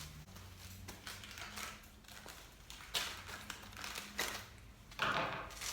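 Handling noise from unboxing bike parts: packaging rustling, with a few sharp clicks and knocks, the loudest a longer rustle a little after five seconds in.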